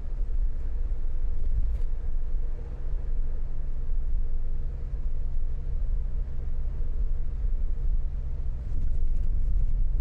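Steady low rumble of engine and tyre noise heard from inside a moving vehicle's cabin as it drives on wet, slushy roads.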